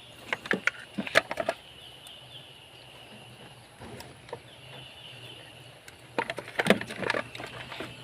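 Light clicks and knocks of tools and parts being handled, in two clusters: one from about half a second to a second and a half in, another from about six seconds in.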